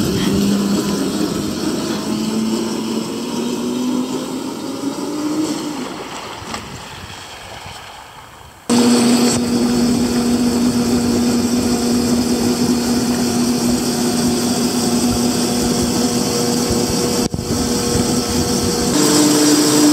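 1800 W, 48 V brushless DC electric motor of an amphibious canoe running with a steady hum over water and wind noise. It fades away over the first eight seconds or so, comes back loud and close about nine seconds in, and steps up slightly in pitch near the end.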